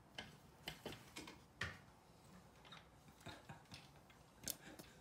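Faint, irregular clicks and taps, about a dozen scattered through, the loudest about a second and a half in and another near the end.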